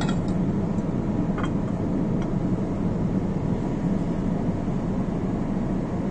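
Fume hood exhaust fan and airflow running with a steady hum. A few light clinks of glass come in the first couple of seconds, as a glass lid is set on a staining jar.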